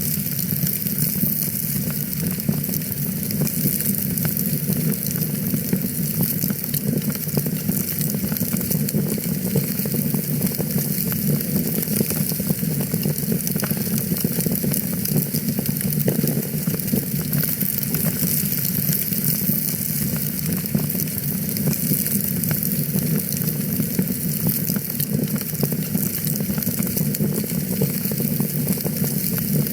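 Fire crackling steadily in a fireplace: a dense run of small pops and snaps over an even low rush of flame.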